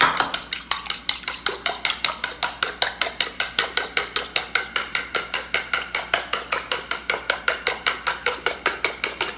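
Two eggs being beaten by hand in a small bowl, the utensil clicking against the bowl in a fast, even rhythm of about six strokes a second.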